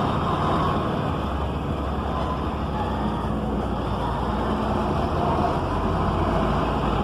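Engine of an Isuzu LV150 coach with a Marcopolo Paradiso 1200 G7 body, running with a steady low drone.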